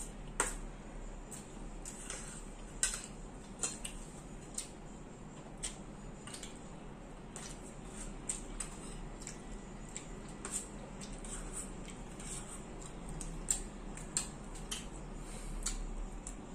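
Spoons and forks clicking and scraping against ceramic plates and a stainless-steel bowl while eating, in sharp irregular clinks.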